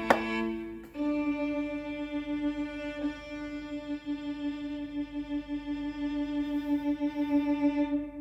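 A single long bowed-string note with wavering loudness, played through a Dynavoice D-Amp amplifier under test. A click comes at the start, the note begins about a second in and stops shortly before the end.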